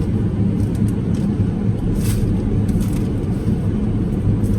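Steady low hum of a parked car's idling engine heard inside the cabin, with a few brief rustles of food packaging.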